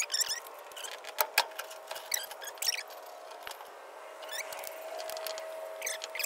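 Headlight assembly being unscrewed and worked off a 1958 VW bus: short high squeaks of metal, with two sharp clicks about a second in.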